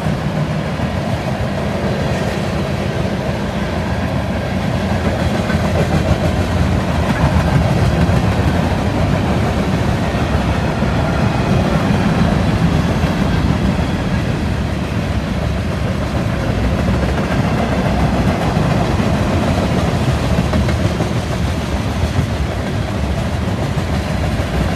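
BNSF freight train rolling through a grade crossing at speed, its cars and wheels running on the rails in a steady, loud rumble.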